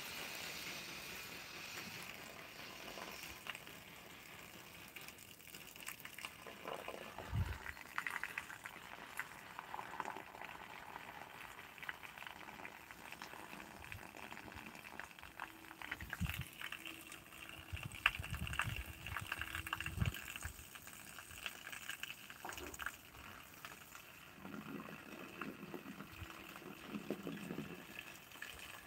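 Faint outdoor background noise with scattered light rustles and clicks, and a few dull low bumps.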